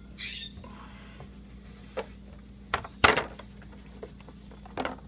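A mounted cardboard game board being handled and pulled from its box: a short rustle, then several knocks of board and cardboard, the loudest about three seconds in.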